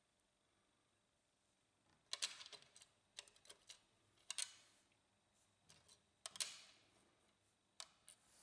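Faint, scattered small clicks of coil springs and a metal contact being handled and pressed onto plastic posts: the toner cartridge's contact springs being fitted in a laser printer's side frame.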